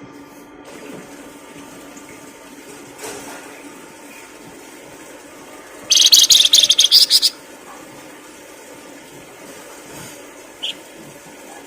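A songbird delivers one loud, rapid, high trilling phrase lasting about a second and a half near the middle, and a single short chirp near the end, over a steady hiss.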